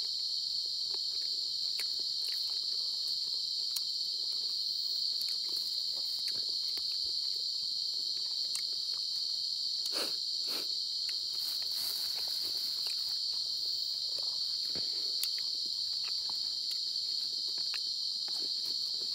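Steady, high-pitched chorus of night insects, one unbroken shrill drone, with faint scattered clicks and rustles of hands picking at food.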